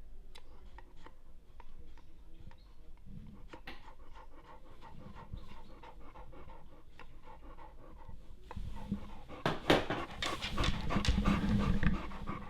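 A trail hound panting rhythmically, growing louder in the last few seconds.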